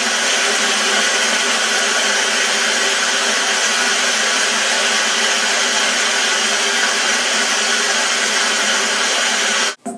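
A steady, loud rushing hiss with a faint hum beneath, played through a TV speaker. It starts abruptly and cuts off abruptly near the end.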